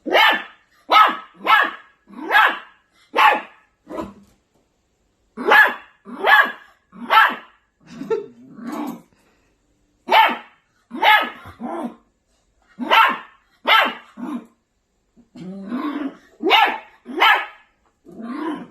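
A maltipoo puppy barking angrily: short, high-pitched yappy barks in quick runs of three to five with brief pauses, mixed with a few lower growling barks.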